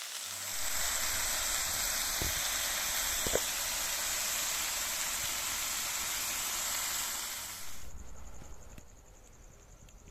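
Pork sizzling in a hot pan, a steady dense hiss with a couple of light clicks. About eight seconds in the sizzle cuts off suddenly, leaving the steady high trill of crickets.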